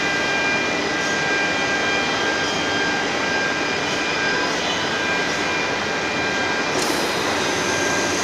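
CNC router's spindle running at speed, a steady whine with several high tones over a broad rushing noise; a brighter hiss joins in near the end.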